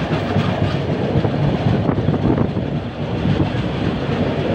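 Moving train heard from inside the coach: a steady, loud rumble of the wheels running on the rails.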